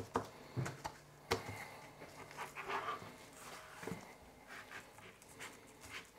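Faint handling sounds of a nitrile-gloved hand rubbing spice rub into raw pork spareribs and turning the rack over on a plastic cutting board, with a few light clicks and taps and a soft thump near the four-second mark.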